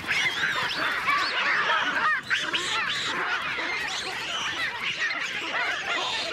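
A dense chorus of many animals calling at once: short, overlapping squawks and yelps that never let up.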